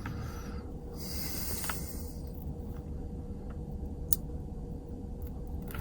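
Handling noise from a padlock being taken apart: a brief hiss about a second in and a sharp click about four seconds in, with a few fainter clicks, over a steady low hum.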